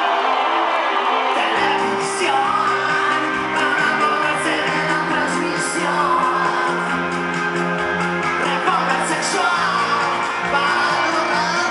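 Live rock band playing, heard from within the audience: electric guitars, keyboard and singing, with shouts from the crowd. The bass and full band come in about a second and a half in, after a moment of cheering.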